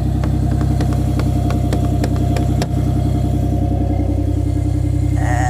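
Car engine idling steadily, with scattered light ticks of raindrops hitting the phone. A brief wavering higher tone comes near the end.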